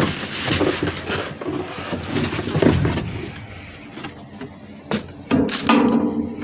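Rubbish being handled in a skip: rustling of bags and packaging, with a few sharp knocks about five seconds in.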